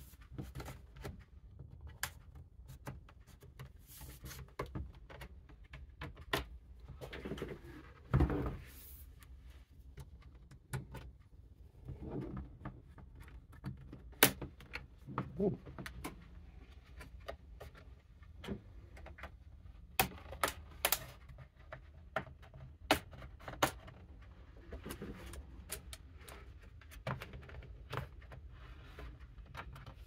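Plastic pry tool working around the bottom cover of a Lenovo ThinkPad T16 Gen 3: irregular small clicks, snaps and light knocks of the plastic panel and its clips against the laptop's case as the cover is loosened, the sharpest click about halfway through.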